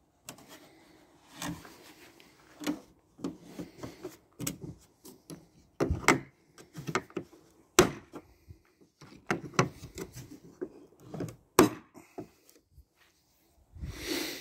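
Plastic tool case being closed and handled: a run of sharp clicks and knocks, several loud ones spread through the middle, with rubbing and scraping near the start and end, as the lid is shut and its latches snapped closed.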